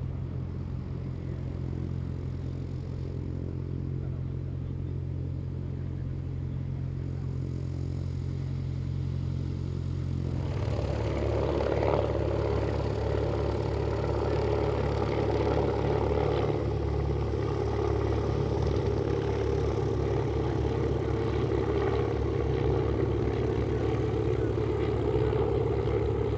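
Klemm 35D's inverted four-cylinder piston engine running steadily; about ten seconds in it grows louder and fuller, as when the throttle is opened or the plane comes nearer.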